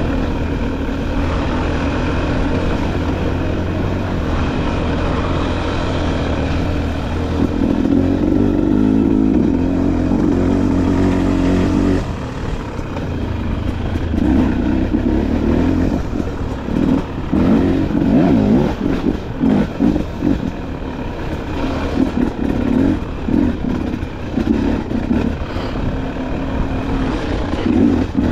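Dirt bike engine running steadily while riding. From about halfway the throttle is opened and closed over and over, so the engine note rises and falls quickly.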